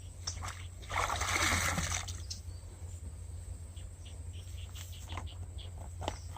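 A splash of water lasting about a second, starting about a second in, followed by scattered small clicks.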